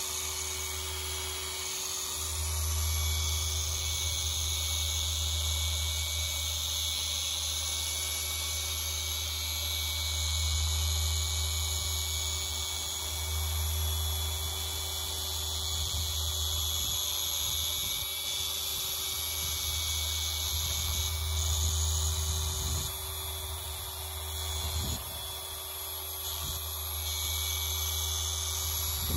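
Rupes LHR12E dual-action polisher running continuously, working a small yellow foam pad on a 3D-printed 80 mm backing plate over a car's paintwork. It gives a steady low hum under a higher motor whine and hiss. The low hum drops away briefly a couple of times in the second half.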